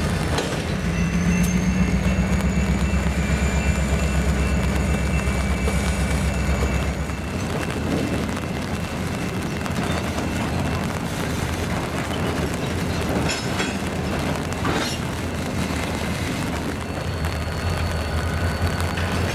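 EMD GP35 diesel locomotives running as a tank-car train moves, with a strong low engine drone and a faint high whine over the first several seconds. The engine sound then drops to a quieter rumble of rolling cars with a few clicks, and the low drone returns near the end.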